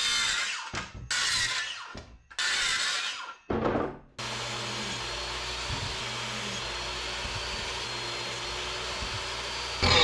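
Power saws cutting a Sapele mahogany board: four short bursts of a circular saw crosscutting, then a steady run of a table saw ripping it into thin strips. Near the end a whine falls away as the motor winds down.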